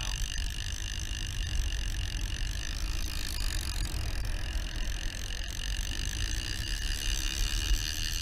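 Wind buffeting the microphone, a steady low rumble with a faint high hiss over it.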